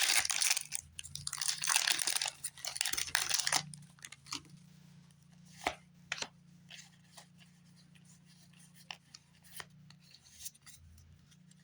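Foil Pokémon booster pack wrapper being torn open and crinkled for about three and a half seconds, then scattered faint clicks and taps as the cards are handled.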